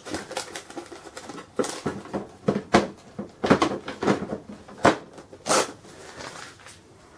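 Plastic printer cover of a cash register being handled and pressed back into place, a run of irregular sharp plastic clicks and knocks that dies away after about five and a half seconds.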